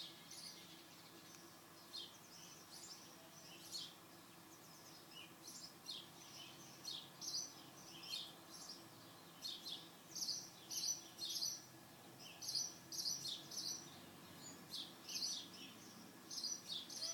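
Sparrow chirping, mostly house and tree sparrows: many short, repeated chirps that are scattered at first and become a busy, continuous chatter after about six seconds.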